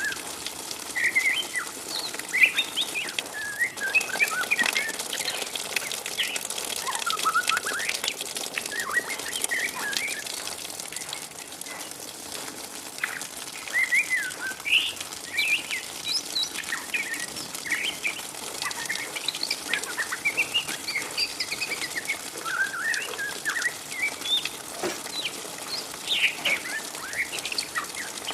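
Juvenile white-rumped shama (murai batu trotol), about three to four months old, giving its 'ngriwik' twitter: a continuous stream of short chirps and quick rising and falling squeaky notes over a steady hiss.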